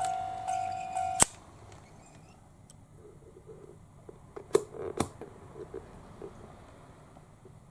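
KATO automatic level crossing's electronic warning bell ringing, about two dings a second, then cutting off with a loud sharp click a little over a second in. After it, faint rustling and two sharp clicks about half a second apart near the middle.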